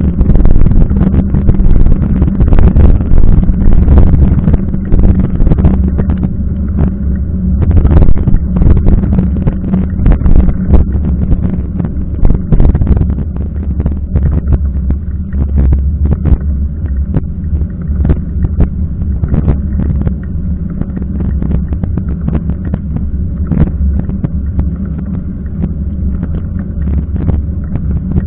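Continuous low rumble and hum of a mountain bike's tyres rolling on wet asphalt, picked up through a camera mounted on the bike's front fork, with frequent small knocks and rattles from bumps in the road.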